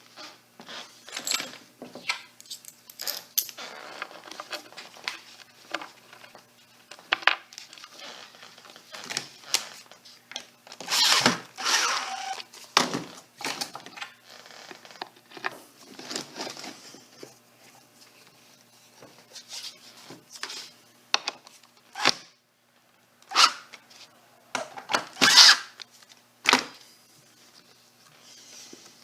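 Irregular clicks, knocks and rustles of hands working at a bench, handling a fiberboard panel, glue roller and kraft paper during a glue-up, with a longer stretch of rustling about eleven seconds in and a few sharp knocks near the end.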